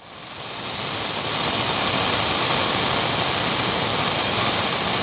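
Analog TV static: a steady hiss of white noise, brightest in the treble, swelling up quickly over the first second.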